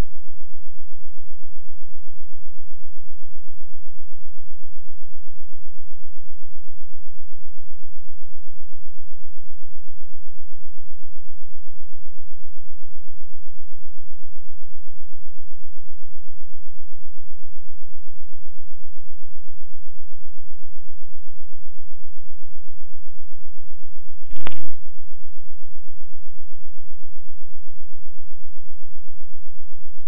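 Steady low electrical hum, with a single sharp click about twenty-four seconds in.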